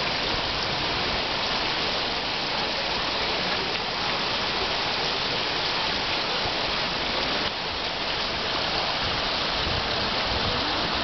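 Water spraying and splattering in a steady hiss.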